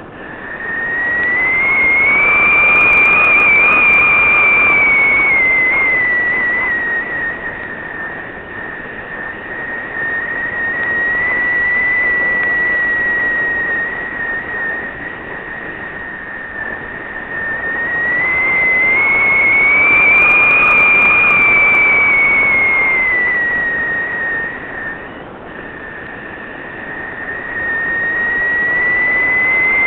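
Sound picked up by a small onboard camera on a flying model: a loud whistling tone that slowly rises in pitch and falls back twice, louder as it rises, over a steady rushing of air.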